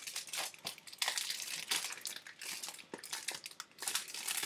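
Plastic packaging around a DVD case being crinkled and torn open by hand: irregular crackling and rustling.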